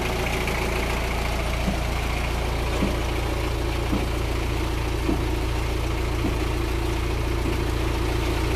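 Engine of a home-built well-drilling rig running steadily on a trial run, with a light knock repeating a little more than once a second.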